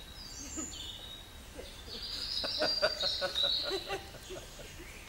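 Woodland songbirds singing high whistled phrases. The song is busiest and loudest a little past the middle, with a quick run of ticks.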